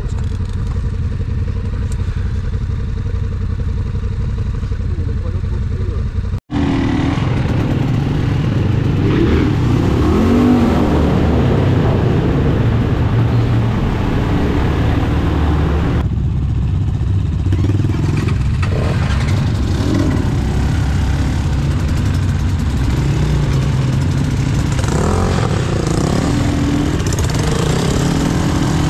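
Enduro dirt bike engine running as it is ridden, the engine note rising and falling with the throttle. The sound drops out for an instant about six seconds in.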